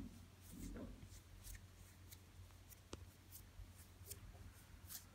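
Near silence: room tone with a steady low hum and a few faint scattered clicks and rustles.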